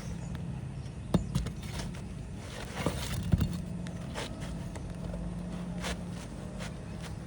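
An asphalt shingle being worked loose from a roofing nail: light scraping with a few sharp clicks, about a second in and again around three seconds, over a steady low hum.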